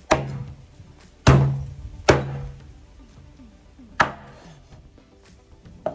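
Cooked jerk chicken being chopped through on a cutting board: four heavy chops at uneven spacing, the loudest about a second in, each followed by a brief low ring, then a lighter knock near the end.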